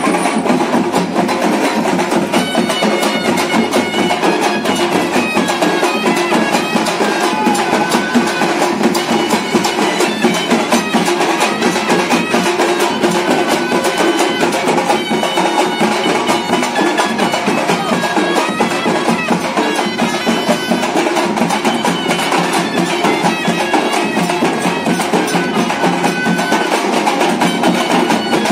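Traditional folk dance music: drums and percussion keep a steady rhythm under a high, held melody line from a wind instrument.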